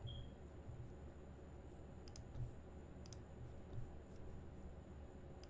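A few faint, sharp computer mouse clicks, about two and three seconds in and again near the end, over a steady low hum.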